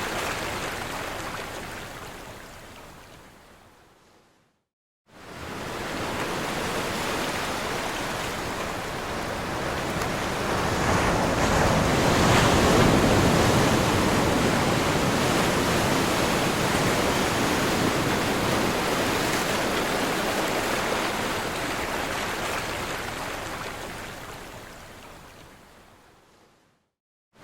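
Ocean surf: a rushing wash of breaking waves that fades out to a moment of silence a few seconds in, comes back, swells to its loudest around halfway, then fades away again near the end.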